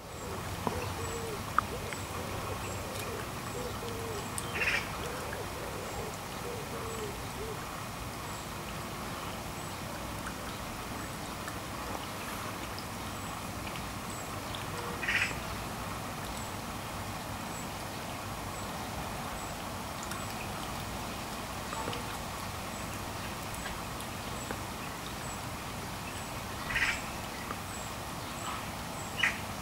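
Small garden fountain bubbling and splashing steadily over a rock water feature. A few short, high bird calls stand out at intervals, and a low, wavering call comes through during the first several seconds.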